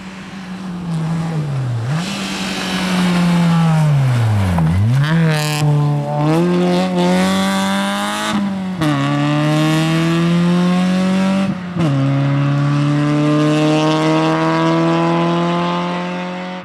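Rally car engine at full stage pace. The note drops steeply twice in the first five seconds as the car slows, then climbs through several gear changes, each a sudden fall in pitch followed by a rise, and ends in one long rising pull.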